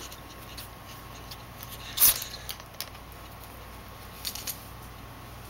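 A ferret sneezing once, a short sharp burst about two seconds in, part of a repeated sneezing fit. A few faint ticks follow.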